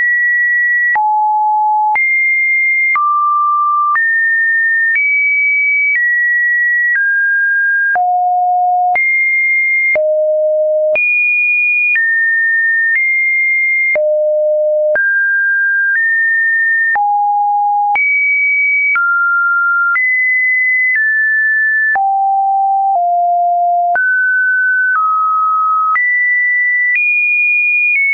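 A sequence of computer-generated pure sine-wave beeps, one steady tone each second, each jumping to a new random pitch, now low, now high, with a faint click at every change.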